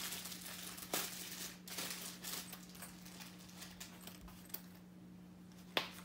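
Faint rustling and small clicks from a wallet and tissue paper being handled, with a sharper click near the end, over a steady low hum.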